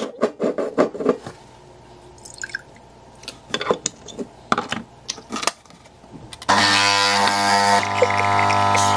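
Clicks and knocks as a capsule coffee machine and its milk frother are handled. About six and a half seconds in, the machine's pump starts with a loud, steady buzz as coffee runs into a cup.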